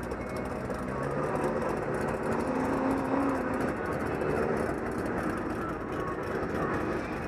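Sherp ATV's diesel engine running steadily as the amphibious vehicle drives through deep mud, with the engine note rising and getting louder about two seconds in before settling.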